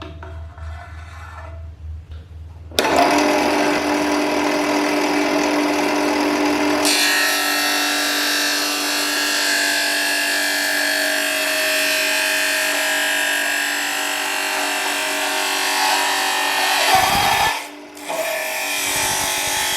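A power sander starts up about three seconds in and runs steadily, grinding against the surface with a steady hum. About seven seconds in it turns brighter and hissier. Near the end it drops off for a moment and then picks up again.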